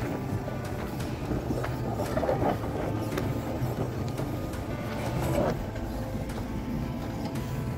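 Toyota pickup truck engine running hard under load as the heavily laden truck climbs a steep dirt slope, with scattered knocks and crunches from the tyres and chassis over loose ground.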